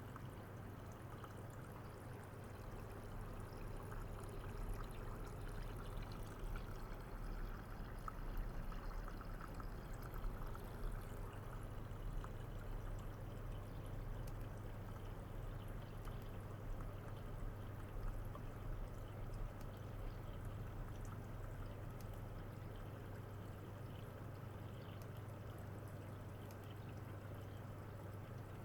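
Running water flowing steadily through a flow-through ultrasonic system, with a steady low hum underneath.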